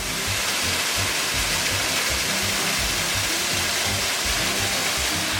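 Steady rush of a desert waterfall, Darwin Falls, mixed with background music that has short low bass notes.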